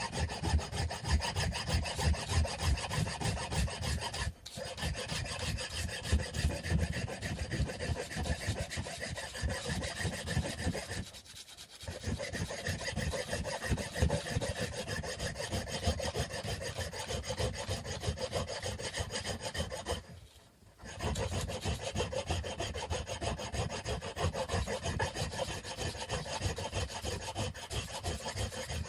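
Wood being sanded by hand: quick, steady back-and-forth rubbing strokes, stopping briefly three times.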